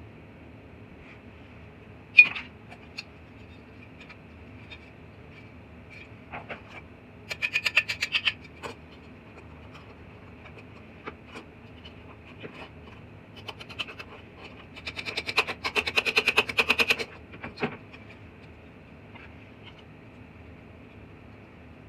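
Hand work in a workshop: a sharp knock about two seconds in, then two runs of rapid clicking and scratching, the second longer, over a faint steady hum.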